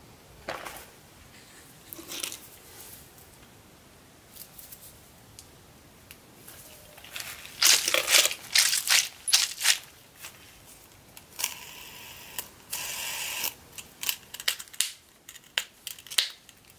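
Handling of fidget toys close to the microphone. There are a few soft clicks from silicone pop-it toys, then a loud crunchy squishing as a mesh stress ball filled with gel beads is squeezed over and over. Near the end comes a run of sharp clicks from a pop-it fidget spinner being handled.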